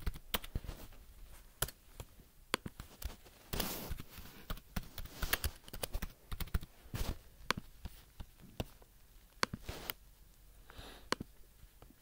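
Typing on a computer keyboard: irregular key clicks with short pauses between bursts.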